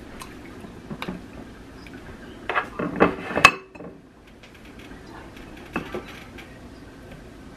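Ceramic bowls and a plate clinking and tapping as fish fillets are dipped in egg wash and pressed into breading by hand, with scattered light clinks and a cluster of louder ones about three seconds in.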